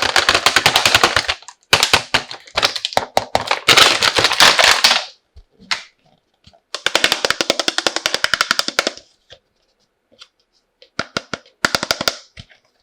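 Bursts of rapid crackling and clicking from plastic toy pieces and their packaging being handled, in four loud stretches with short quiet gaps between.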